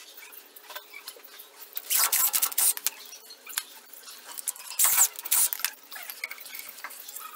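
Light metallic clinks and scrapes of hands working the nuts and studs on a pickup's rear brake drum hub, with two louder bursts of metal clatter about two seconds and five seconds in.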